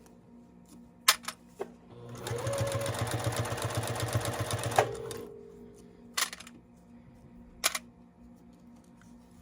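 Juki TL-18QVP straight-stitch sewing machine running a burst of fast stitching for about three seconds, its motor whine rising as it gets going and then cutting off. Several sharp clicks come before and after the run.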